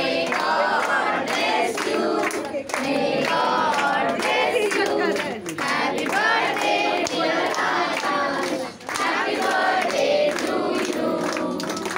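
A group of people singing together, loud and a little ragged, with some hand clapping.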